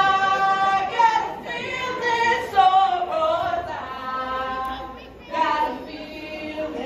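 Group of women singing together in unison, a cappella, holding some notes for about a second between shorter phrases.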